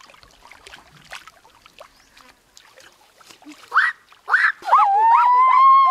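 Faint water splashing from a large fish thrashing at the surface of a shallow muddy pond. About four seconds in, much louder pitched calls break in: a couple of upward-sweeping cries, then a long held wavering tone with shorter arching calls under it.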